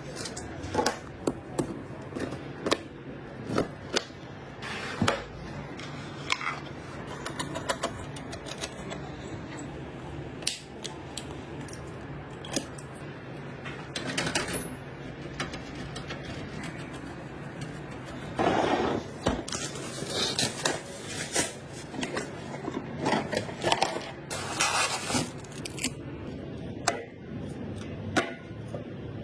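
Computer parts handled and fitted together: repeated clicks, taps and short scrapes of metal and plastic, with a few longer rustling scrapes in the second half.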